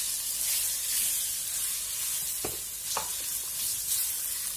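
Boiled potato pieces sizzling in hot mustard oil and spice paste in a nonstick pan while a spatula stirs them, with two light knocks about two and a half and three seconds in.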